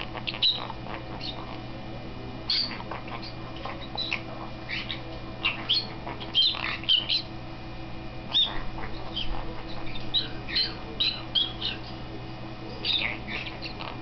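White-capped pionus parrot jabbering: short chirps, squeaks and squawks in quick runs, with brief pauses between runs.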